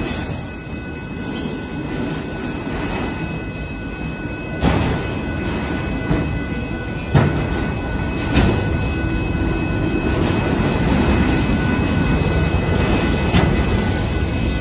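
Union Pacific auto train's freight cars rolling past: a steady rumble of wheels on rail with a few sharp clanks and a faint, steady high wheel squeal.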